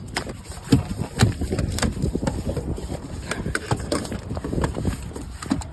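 Hammerhead shark thrashing on a fiberglass boat deck: irregular thumps and knocks as its body and tail slap the deck and the gear beside it, with wind rumble on the microphone.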